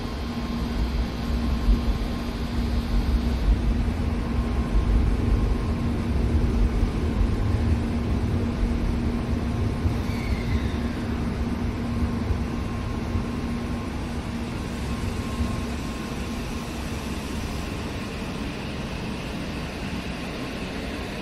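Shinkansen train running at the station: a steady low rumble with a constant hum, easing off toward the end.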